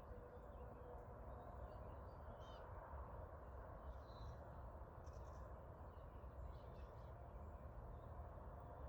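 Faint outdoor ambience: a low, steady background hiss and rumble, with a few faint, short bird chirps scattered through it.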